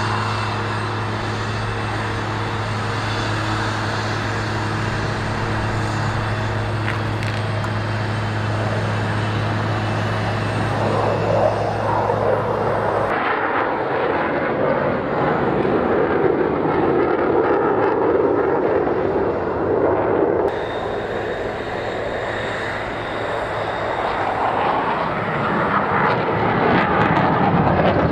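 KC-135 Stratotanker jet engines running on the ground. A steady low hum for the first half gives way, after a cut about 13 seconds in, to a louder rushing engine noise that dips briefly and swells again near the end.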